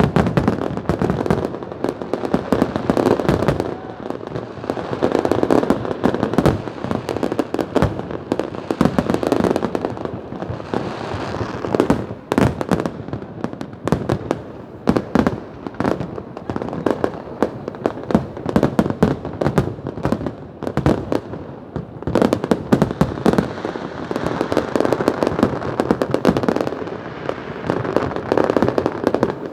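Fireworks display: a dense, continuous run of overlapping bangs and crackle as many shells burst, thinning somewhat around the middle before building again.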